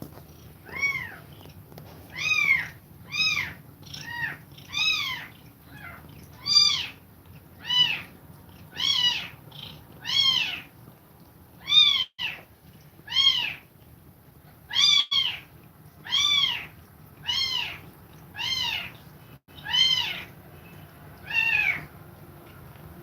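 A kitten meowing over and over, about one high-pitched meow a second, each rising and then falling in pitch.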